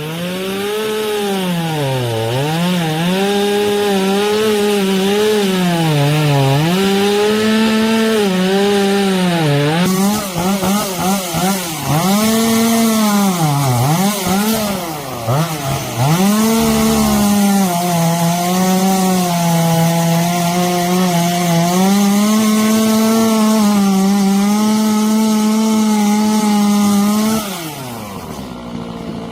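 Chainsaw running at high speed while cutting firewood, its pitch sagging and recovering again and again as the chain loads up in the wood. Near the end it drops back to a lower idle.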